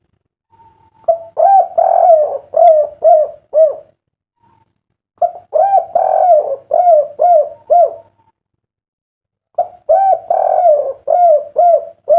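Spotted dove (derkuku) cooing: three song phrases, each a short opening coo and a longer coo followed by three short, evenly spaced 'kuk' notes. This is the 'kuk 3' song type that keepers prize. The third phrase is cut off at the very end.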